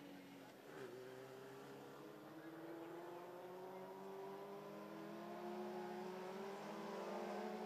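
Faint, steady running of Lightning Sprint cars' motorcycle engines at low speed, their pitch rising slowly as the field rolls around under caution.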